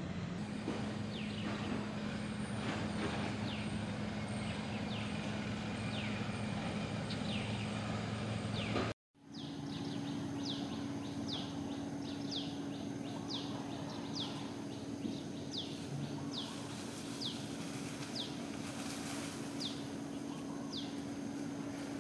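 Outdoor ambience with a steady low hum under a short high chirp that falls in pitch and repeats about twice a second. The sound cuts out briefly about nine seconds in, then resumes with a slightly higher hum.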